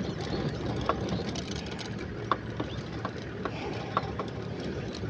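Steady low rumble of a safari vehicle's engine idling, with scattered short clicks.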